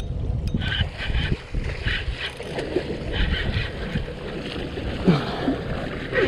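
Wind rumbling on the microphone and water splashing against a small boat's hull as it sits in the open ocean.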